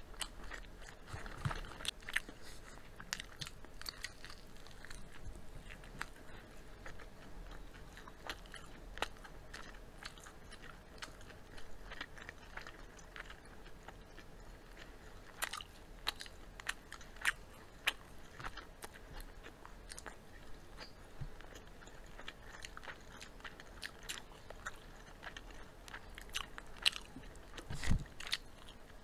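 Close-up chewing and crunching of crispy fried chicken, with irregular sharp crackles as the coating breaks, and a single low thump near the end.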